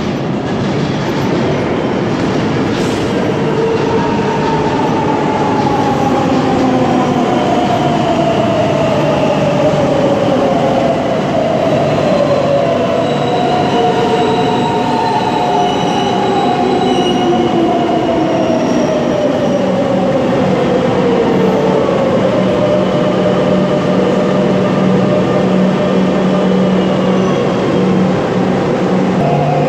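A metro train pulls into an underground station and brakes to a stop, with rail and wheel noise. Its motors whine in several tones that slide down in pitch as it slows. A steady low hum takes over near the end, once it stands at the platform.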